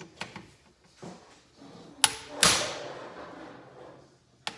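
Hammer striking a steel driver set on a Phillips screw in a Kawasaki KZ400 motorcycle's aluminium crankcase, to break the screw loose. A light tap about two seconds in is followed at once by a hard metallic blow that rings on for over a second, and another light tap comes near the end.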